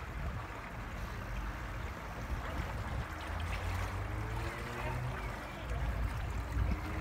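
Wind buffeting the phone's microphone over a steady wash of lapping water, with faint voices in the background.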